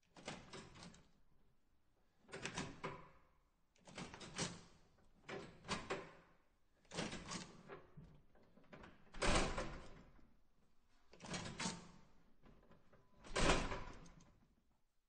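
Push-bar (panic bar) door clunking about eight times in a row, each bar-and-latch clack fading over a second or so, several with two clacks close together. The two near the end are the loudest.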